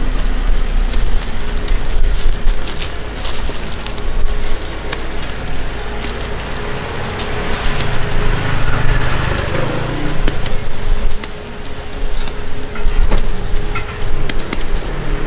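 Hotteok (Korean sweet pancakes) sizzling in oil on a street-stall griddle: a steady frying hiss, with scattered clicks and rustles and a low rumble in the first few seconds.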